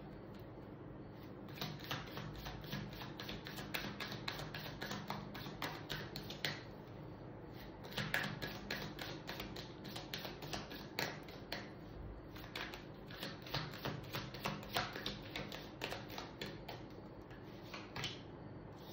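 A deck of tarot cards being shuffled by hand: quick runs of light flicking clicks, broken by a few short pauses.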